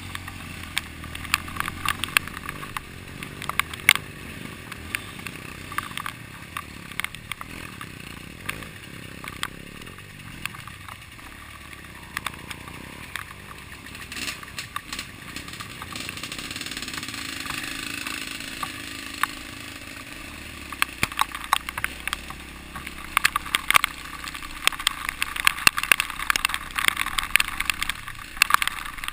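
Dirt bike engine running at low speed on a rough, muddy trail, with frequent knocks and rattles over the bumps that come thicker in the last several seconds.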